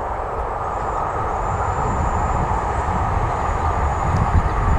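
San Diego Trolley electric light-rail train passing, a steady rumble of wheels on the rails with a faint high whine over it.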